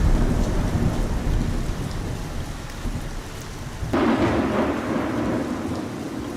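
Torrential rain pouring steadily during a thunderstorm. A rumble of thunder fades over the first few seconds, then a sudden loud thunderclap breaks about four seconds in and rolls away.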